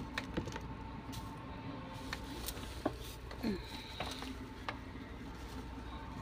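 Light handling noises as a phone is moved about: a few scattered soft clicks and taps over a faint steady hum, with one brief short sound about three and a half seconds in.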